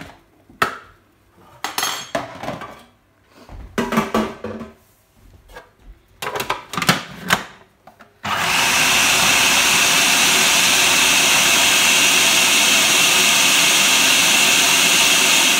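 Knocks and clatter as baked apples are dropped into a food processor bowl and the lid is fitted, then about halfway through the food processor's motor switches on and runs steadily with a high whine, blending the apples to a purée.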